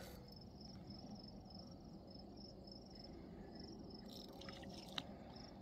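Crickets chirping faintly in a steady, evenly pulsing high trill, with a single small click about five seconds in.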